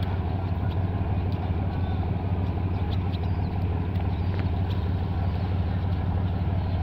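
Passenger ship's diesel engine running with a steady low drone as the ship pulls away from the harbour.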